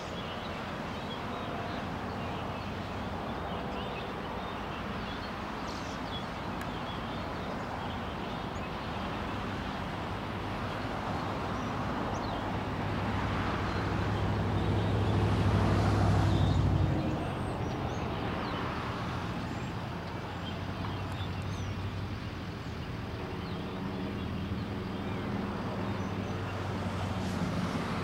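Steady outdoor background noise with a low rumble that swells for several seconds and drops off suddenly about seventeen seconds in.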